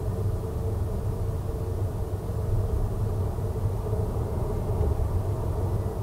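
Steady low rumble of idling engines in stopped traffic, picked up by a dashcam inside the car's cabin.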